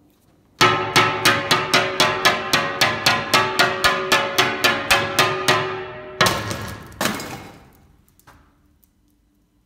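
A steel hammer strikes a tempered-glass kitchen panel in a quick, even run of about four blows a second. The panel rings at the same few pitches through every blow, and the run fades out over about five seconds. Two harder blows follow, each ringing longer, and the panel does not break.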